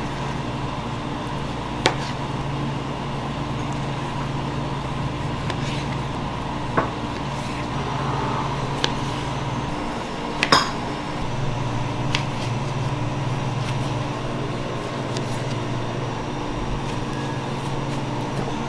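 A kitchen knife slices through ripe figs, tapping sharply on a plastic cutting board about five times; the loudest tap comes about ten seconds in. Under it runs a steady machine hum.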